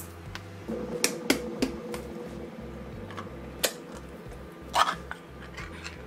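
Ring-pull lid of a metal food can being opened by hand: a few sharp clicks as the tab is lifted, then a short tearing burst near the end as the lid pulls away. A faint steady hum runs underneath.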